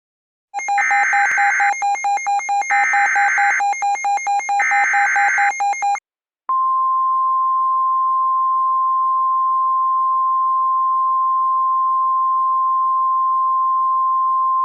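Emergency Alert System SAME header: three short bursts of warbling digital data tones about a second apart. After a brief gap comes the single steady 1050 Hz warning alarm tone, which starts about six and a half seconds in and holds unchanged. Together they announce an incoming tornado warning.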